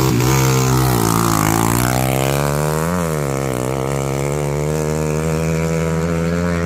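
Motorcycle engines running and revving at a dirt-track drag race, the pitch falling and rising, dipping sharply about three seconds in, then holding steady.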